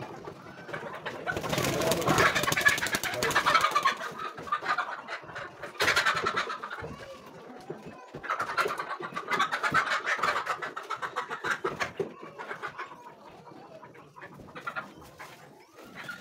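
Laying hens squawking and clucking in alarm while being caught by hand, with wing-flapping, in several loud bursts separated by quieter stretches.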